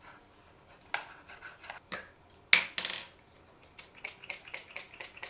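Skincare bottles and containers clicking and clinking as they are handled, opened and set down. A few separate sharp clicks, the loudest about two and a half seconds in, then a run of light ticks near the end.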